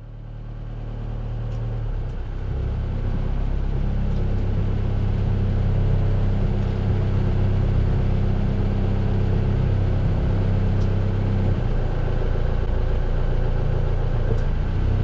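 A sailboat's inboard auxiliary engine idling steadily at the dock before casting off. The hum fades in over the first couple of seconds.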